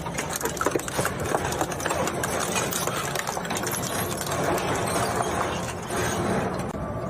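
Plastic shredder machine running, with dense rapid cracking and crunching as plastic is torn up. The crunching eases near the end, leaving the machine's steadier running noise.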